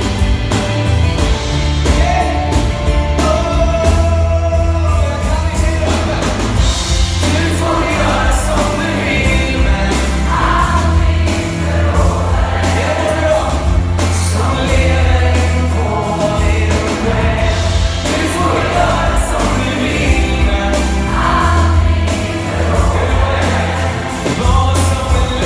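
A large choir singing a pop song with a live band, over a strong, steady bass line.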